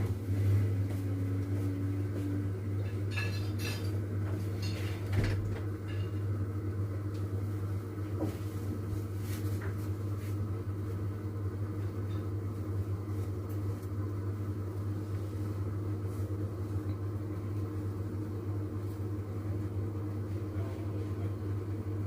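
Washing machine running with its drum turning: a steady low motor hum that starts up just before and holds throughout, with a few knocks and clatters in the first five seconds.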